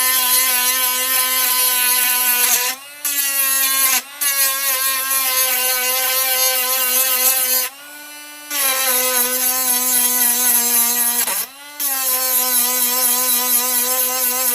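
Sealey CP1207 cordless multi-tool running with a steady high whine as it grinds hedge trimmer blades to sharpen them. Four times it is briefly lifted off, the grinding hiss stopping and the motor note rising slightly before it bites again.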